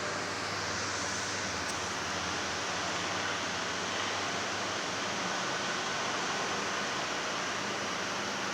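Arge Max 50 cm wall fan running, a steady rush of moving air with a faint low motor hum underneath.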